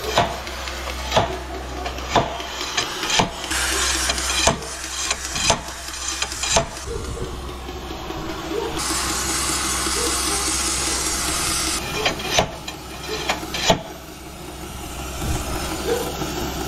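Slide hammer knocking about once a second, working a very tight, heated bush out of a Scania truck. A steady hiss rises briefly about three seconds in and again from about nine to twelve seconds in.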